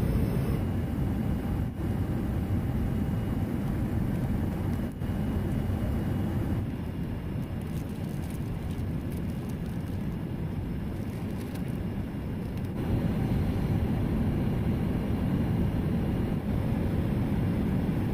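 Steady low rushing noise inside a jet airliner cabin in flight, from the engines and airflow. Faint crinkling from a plastic food wrapper comes in the middle.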